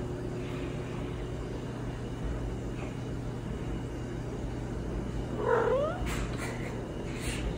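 Siamese cat, poked while asleep, gives one short odd call that rises in pitch, about five and a half seconds in.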